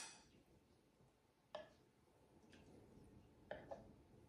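Faint clinks of a metal spoon against ceramic bowls as curry is ladled out: a louder clink fading at the start, one light tap about a second and a half in, and two quick taps close together near the end.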